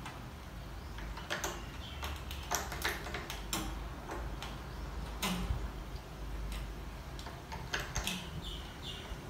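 Small, unevenly spaced clicks and scrapes of a new steel string being threaded and wound by hand onto a tuning peg at a 12-string guitar's headstock.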